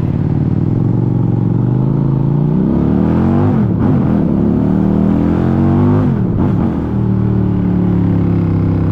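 QJMotor SRV400 V-twin motorcycle engine running under way. Its pitch climbs, drops back about three and a half seconds in, climbs again, drops back around six seconds in, then holds steady.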